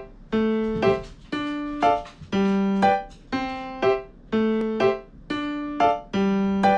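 Background music: a light piano-style keyboard tune. Its plucked-sounding notes fade away in an even long-short pattern of about two notes a second.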